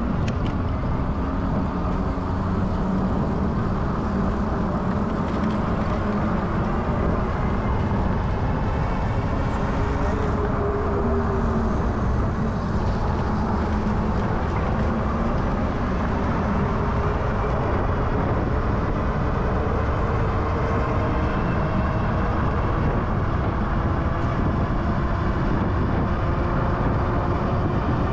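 Steady wind and road rush on a moving camera riding among a group of electric bikes, heavy in the low end, with faint whines that rise and fall.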